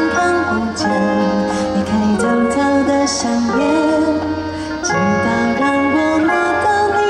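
Pop music: a voice singing a melody over band accompaniment.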